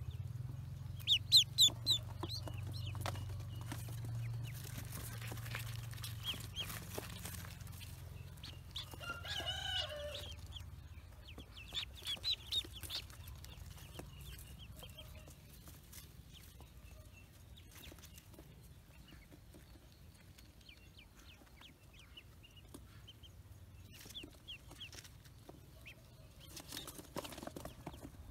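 Newly hatched ducklings peeping: runs of short, high-pitched peeps, loudest about a second in and again about twelve seconds in, with a lower, rougher call around ten seconds in.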